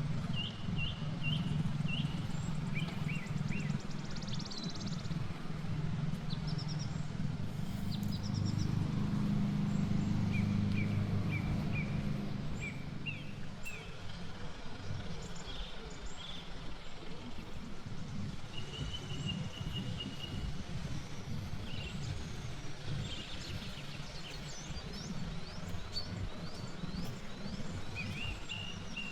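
Small songbirds chirping throughout, in short repeated chirps and a brief trill, over a low rumble. The rumble is strongest in the first twelve seconds and then drops away.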